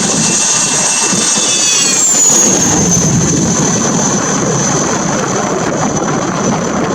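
Cessna Citation's twin turbofan jet engines at takeoff power: a loud, steady rushing roar with a high-pitched whine. The whine drops in pitch about two seconds in, then holds steady.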